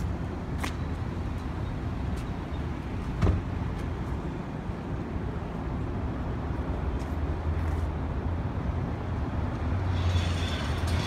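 Steady low outdoor rumble of street and traffic noise, with a couple of brief knocks and the rumble growing stronger near the end.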